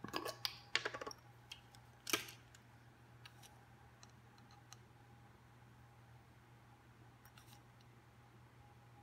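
Clicks and rattles of a ring of plastic measuring spoons and a metal lid being twisted off a glass yeast jar, ending in one sharp click about two seconds in. After that only a few faint ticks of a plastic spoon scooping dry yeast.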